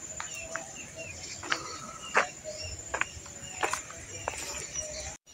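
Outdoor rural ambience recorded by a phone's microphone: a steady high insect trill runs throughout, with a few irregular soft taps, typical of footsteps while walking. The sound cuts out abruptly just before the end.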